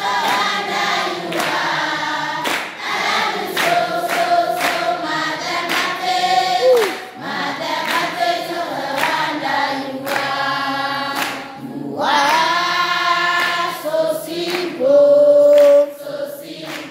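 A large group of schoolchildren singing together in unison, with hand-clapping. A long note is held near the end.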